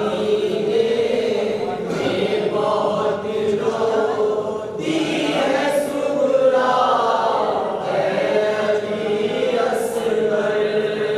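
A noha, a Shia mourning lament, chanted by men's voices together, led by a reciter on a microphone. The sung line rises and falls in long phrases.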